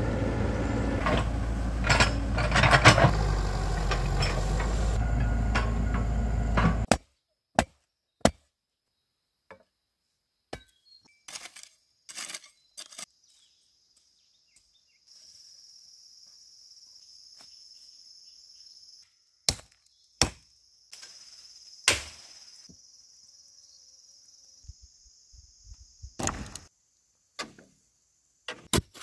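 A loud rumbling, machine-like sound for about the first seven seconds, which cuts off suddenly. It is followed by scattered sharp knocks like wood being chopped or struck, with a faint steady high insect drone through the middle.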